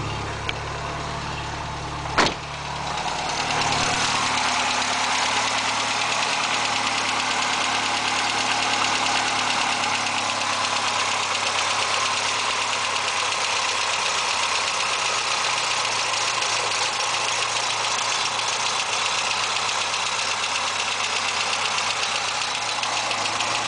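1986 Volkswagen GTI's 1.8-litre 8-valve four-cylinder engine finishing a hard start. It cranks for the first two seconds, catches with a sharp clack, builds up and then idles steadily. The owner hears a slight knock in it near the end.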